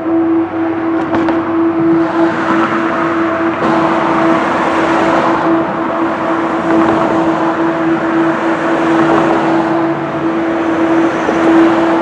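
Ambient sound-art drone: a steady held tone under a dense rushing noise wash that swells and ebbs.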